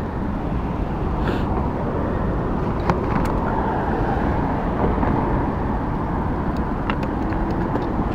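Motorized bicycle's CAG two-stroke engine running steadily under way, with a heavy low rumble throughout and a few faint clicks.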